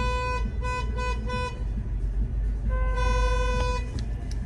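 Vehicle horn honking in a pattern: a long blast, three quick short beeps, then another long blast, over the low rumble of street traffic.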